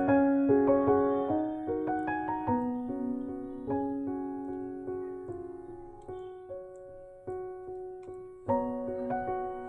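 Background piano music: a gentle melody of single notes that grows softer, then comes back louder with a struck chord about eight and a half seconds in.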